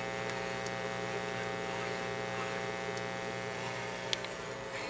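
Steady mains hum and buzz from speakers fed by the Philco M-7 record player's output, with no music coming through: the owner is fairly certain the phono cartridge is dead. One short click about four seconds in.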